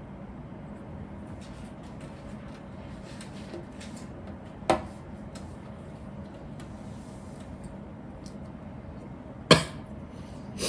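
Hard plastic clicks of Lego pieces being handled and pressed together: two sharp clicks about five seconds apart, the second louder, with a few faint ticks between, over a steady low hum.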